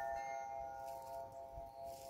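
Several clear tones of a struck metal chime ringing on together and slowly fading.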